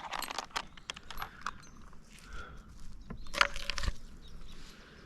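Scattered light clicks, clinks and rustles of a tree climber's gear and branches after a chainsaw stops, with a dull thump about four seconds in.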